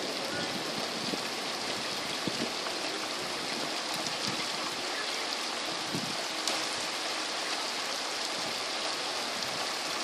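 Steady rain falling in a thunderstorm: an even hiss with scattered small ticks of drops.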